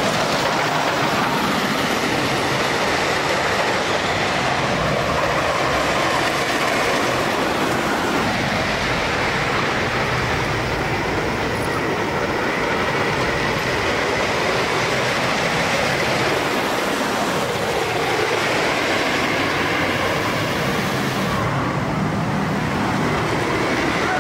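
Train of the Grizzly wooden roller coaster running over its wooden track, a steady rumble and clatter of wheels on the timber structure.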